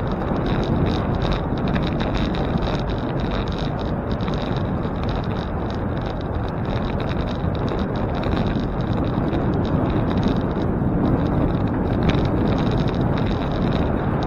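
Steady rush of wind on the microphone with tyre and road noise from a moving bicycle, and faint small ticks and rattles.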